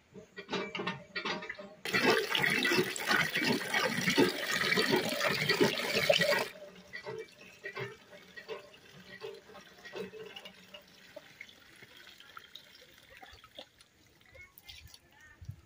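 Water gushing from a village hand pump's spout into a metal pail as the pump handle is worked, with rhythmic strokes of the pump in the first two seconds. The rush is loudest for a few seconds, then goes on as quieter splashing with small knocks.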